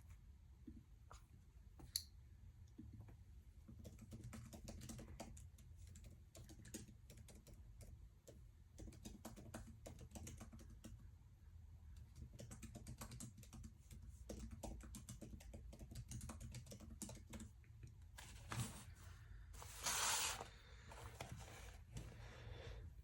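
Faint typing on a computer keyboard: quick, irregular key clicks. Near the end comes a louder burst of noise about a second and a half long.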